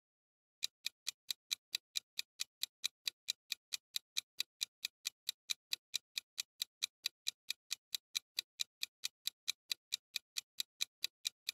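Clock-tick sound effect of a quiz countdown timer: sharp, evenly spaced ticks, about four to five a second, starting about half a second in and running on as the answer time counts down.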